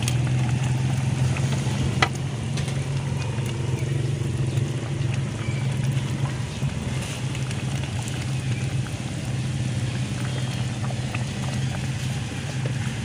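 A steady low hum like a running engine, unchanging throughout, with a single sharp click about two seconds in.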